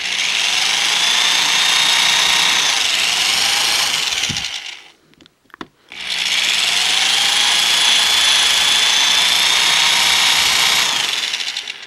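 Power drill running in two runs of about five seconds each with a short pause between, its bit slowly boring out a plastic rivet; a steady high whine sits over the motor noise.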